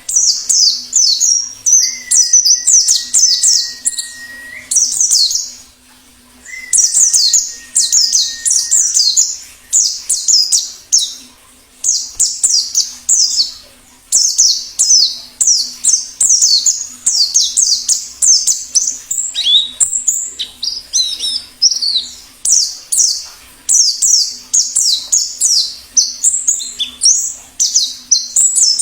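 Wild white-eye (pleci) singing: rapid, high-pitched twittering phrases of quick falling notes, with short pauses between bursts.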